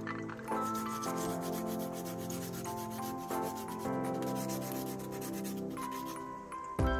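A sponge scrubbing wet walnut shells in a bowl of water: a rapid, rasping rub, stroke after stroke, over soft background music.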